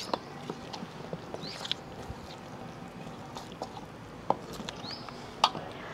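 A hand squelching and stirring wet chili-powder and fenugreek paste in a steel bowl: soft irregular wet clicks, with a couple of sharper taps late on. A bird gives a few short, high chirps.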